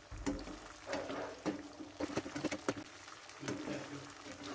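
A spatula stirring and scraping thick tomato and chili sauce around a stone-coated non-stick wok, in a series of irregular wet scrapes and taps.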